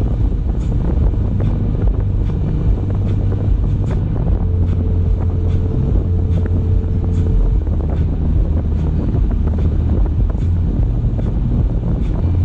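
Car driving along at speed: steady low road rumble and wind noise buffeting the microphone, with small ticks from the road surface.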